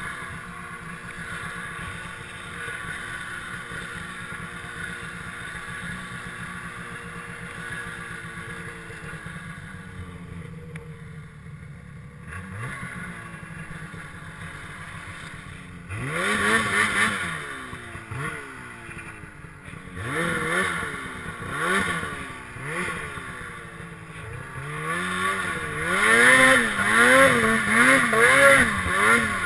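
Snowmobile engine running steadily at part throttle, then revved up and down in repeated surges of throttle that come quicker and louder near the end, about one a second.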